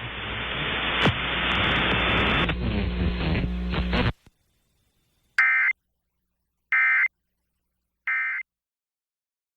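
Radio static with a low hum, cut off suddenly about four seconds in. It is followed by three short, raspy Emergency Alert System end-of-message data bursts, each about a third of a second long and spaced about 1.3 s apart, which signal that the alert has ended.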